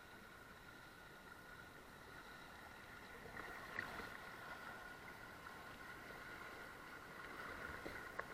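Flowing water of the Fils river, running high after heavy rain, heard from right at the water surface: a steady rushing that grows louder about three seconds in as the current speeds up over a shallow, stony stretch, with two brief sharper splashes, one about four seconds in and one near the end.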